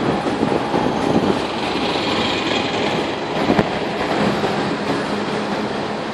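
Hong Kong double-decker tram running along its tracks: a steady noise of steel wheels on rail, with one sharp knock about three and a half seconds in and a low steady hum joining about four seconds in.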